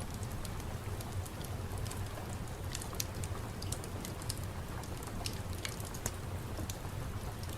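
Steady rain ambience: a constant low hiss and rumble of rain with scattered sharp ticks and pops throughout.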